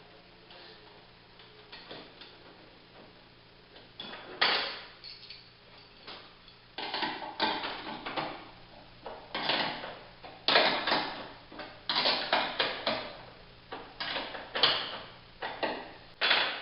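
Metal tailgate catch hardware being fitted by hand, nuts and bolts clicking and clattering in irregular sharp knocks that begin about four seconds in.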